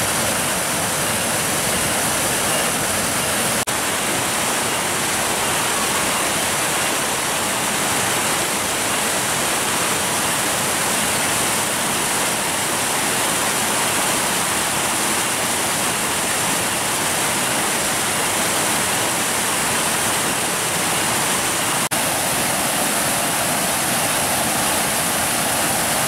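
Steady rushing and splashing of a small stream pouring over rocks in little waterfalls.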